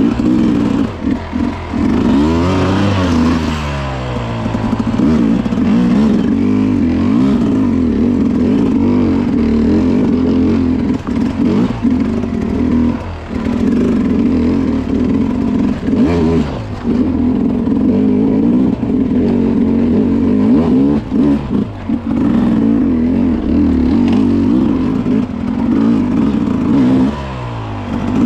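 Enduro motorcycle engine under hard riding, its revs rising and falling again and again, with short drops as the throttle is closed.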